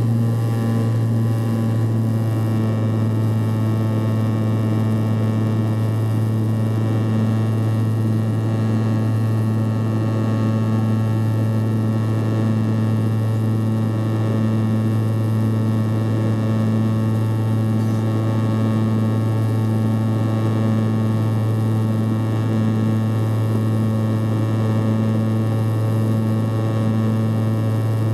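Antonov An-140's turboprop engines and propellers heard from inside the cabin: a steady deep propeller drone with a second, higher tone above it, over an even rush of noise.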